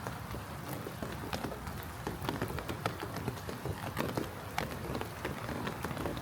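Light rain falling, with many individual drops tapping irregularly close by over a steady soft hiss.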